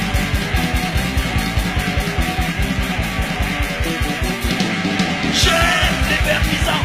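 Loud punk rock song with distorted guitar and a fast, steady drum beat; the singer comes back in near the end.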